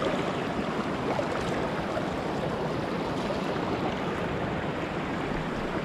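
Steady rush of river water flowing over rocks below a waterfall.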